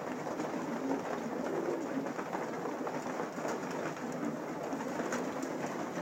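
A flock of racing pigeons cooing together in the loft, over a steady patter of small clicks and rustles.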